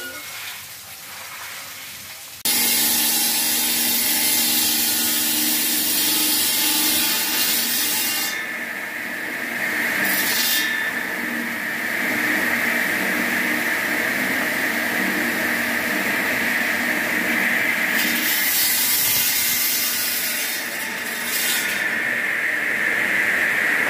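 Workshop-built stone cutting machine with a large water-cooled diamond blade sawing blocks of volcanic stone: a loud, steady grinding hiss over a high blade whine, starting abruptly a couple of seconds in. The grinding swells and eases as the stones are pushed through the blade.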